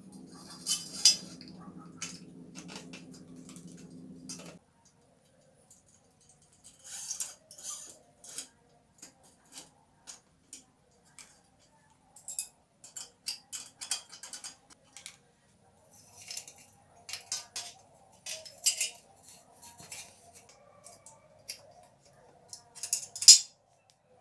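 Scattered metallic clicks and clinks of hand tools and bicycle brake parts being handled while a brake cable is fitted and adjusted. A steady low hum cuts off suddenly a few seconds in.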